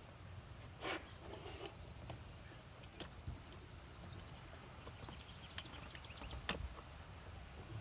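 Hand-work noises in a car's engine bay while a rubber air intake hose is worked onto its fitting: a knock, then a fast, even run of fine clicks lasting about three seconds, then two sharp clicks.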